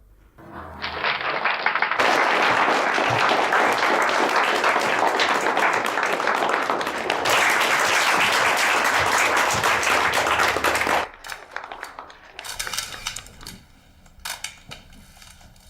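Audience applauding: dense clapping that builds about a second in, holds steady and cuts off suddenly near the eleven-second mark.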